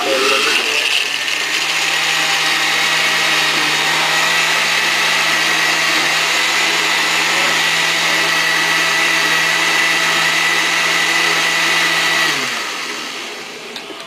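Countertop blender running steadily, blending orange juice and ice. The motor is switched off about twelve seconds in and winds down, falling in pitch.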